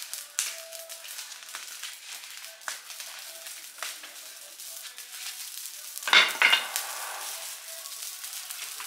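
A trash fire crackling and hissing with many small pops, with one louder sudden noise about six seconds in.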